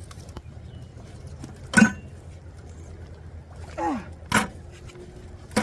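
Three sharp metal clanks, spaced a couple of seconds apart with the last the loudest, as a haul of railroad spikes and the fishing magnet knock together, over a steady low rumble. A short falling vocal sound comes a little before the second clank.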